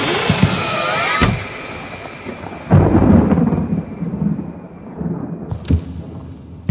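A thunder sound effect over a stage sound system: the music breaks off with a sharp crack about a second in, then a deep rumble of thunder rolls in just under three seconds in and slowly dies away.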